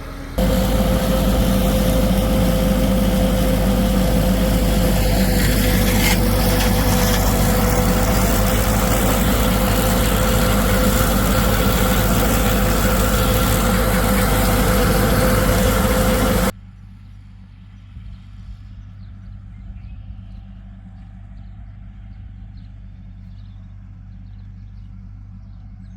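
Diesel tractor engine running steadily at working speed. About sixteen seconds in it cuts off abruptly to a much fainter background.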